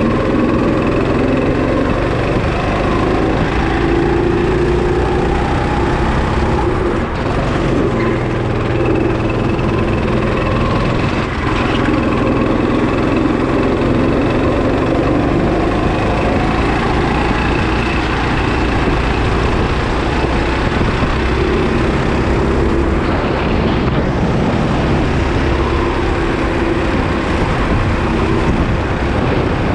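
Go-kart engine running at racing speed, heard onboard from the kart itself, its pitch rising and falling as the throttle is worked through corners and straights.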